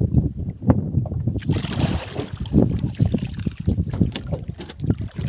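Choppy water slapping against the hull of a small wooden boat, with wind buffeting the microphone and a scatter of short knocks from the boat.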